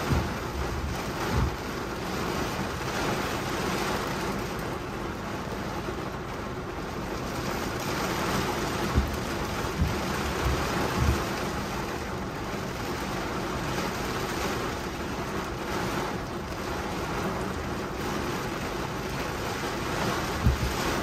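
Heavy storm rain beating on a car's windshield and roof, heard from inside the car as a steady dense hiss. A few brief low thumps come through it near the start, in the middle and near the end.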